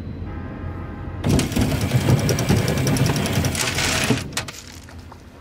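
Aluminum boat hull grinding and scraping over a gravel river bank as the boat is run ashore. The grinding starts suddenly about a second in and lasts about three seconds, over the low steady hum of the boat's motor.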